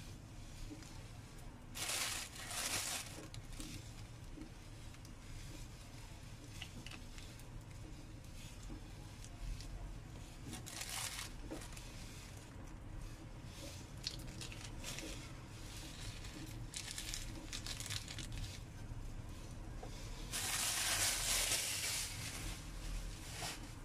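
Plastic seasoning sachets crinkling and tearing as they are opened and squeezed out by hand, in a few short bursts with a longer, louder one near the end.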